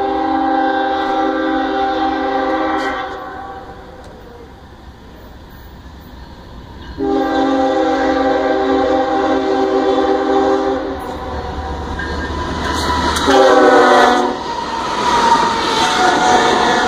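A BNSF freight locomotive's multi-note air horn sounds two long blasts and then a short one as the train approaches, the long-long-short pattern of a grade-crossing warning. The lead locomotives then pass close by with loud engine and wheel noise.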